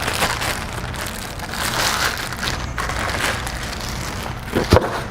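Packaging crinkling and rustling as vacuum parts are unpacked and handled, with a couple of sharp knocks near the end.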